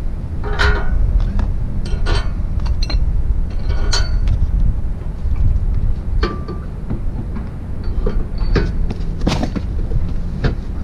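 Irregular metal clanks and clinks, about six in all, from the side step, its brackets and bolt hardware being handled and fitted, over a steady low wind rumble on the microphone.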